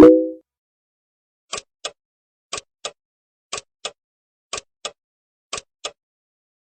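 Sound-effect clips: a sudden hit with a brief ringing tone, then light clicks in five pairs, one pair about every second, like a tick-tock.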